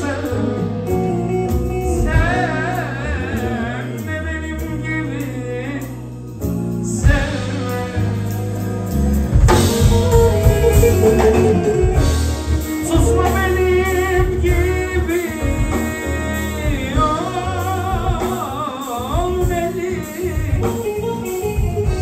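Live Turkish folk-pop band: a male singer's ornamented, wavering vocal line over keyboard, electric guitar and drums with a steady low bass. The band plays louder from about nine seconds in.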